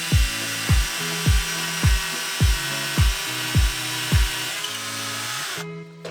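Handheld rotary tool running at high speed, grinding away brass with a steady high whine, until it cuts off suddenly near the end. Background music with a steady kick-drum beat, about two beats a second, runs underneath.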